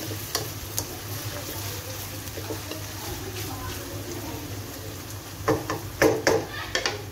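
Wooden spatula stirring sliced onions frying in a steel wok, scraping and knocking against the pan, with a few louder knocks near the end over a steady low hum.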